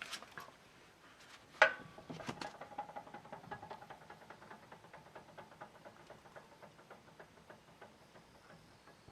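Suzuki Jimny JB23 rear wheel, jacked up and spun freely with the parking brake off, clattering: a sharp knock about a second and a half in as it is set turning, then a rapid ticking with a faint whirr under it that gradually slows and fades as the wheel coasts down. The owner cannot place the rattle and suspects the differential, an ABS sensor or a drive shaft bearing.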